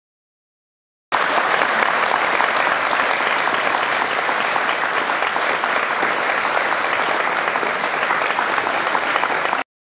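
Congregation applauding: steady, dense clapping that cuts in suddenly about a second in and cuts off suddenly near the end.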